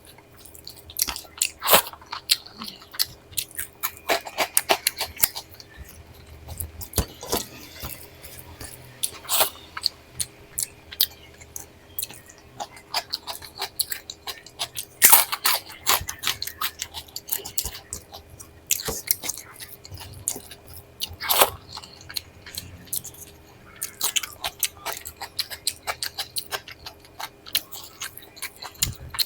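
A person chewing food close to the microphone, with frequent irregular sharp crunches and crackles from crisp food being bitten and chewed.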